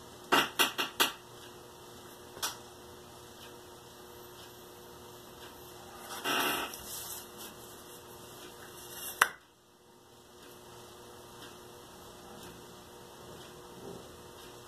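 Steady low hum with small desk-work handling noises as a plastic ruler and marker pen are handled over a paper template. A quick run of four clicks comes near the start, a single tap a couple of seconds in, a short scrape or rustle about six seconds in, and one sharp click about nine seconds in.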